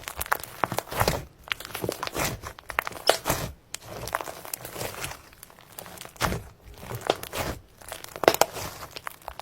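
Slime being squeezed, stretched and pressed by hand, giving irregular bursts of sticky crackling and popping.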